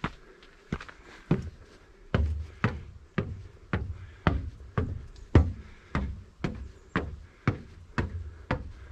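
A hiker's footsteps on the mountain trail, steady steps at about two a second, each a sharp knock.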